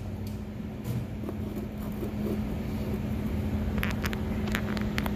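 A steady low hum from the vehicle, with a few light clicks and taps about four seconds in as parts are handled under the hood.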